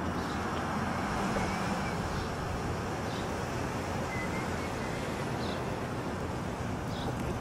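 Steady outdoor street ambience: a wash of wind and distant traffic noise, with a few faint, short, high chirps scattered through it.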